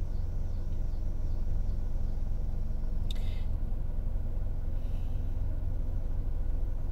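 Steady low background rumble, with a short faint click about three seconds in.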